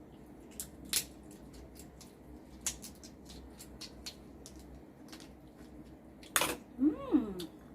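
Eating seafood by hand: scattered sharp clicks and small cracks from handling shells and chewing, louder about a second in, near the three-second mark and again near the end. Just before the end comes a short hummed 'mmm' whose pitch rises and falls.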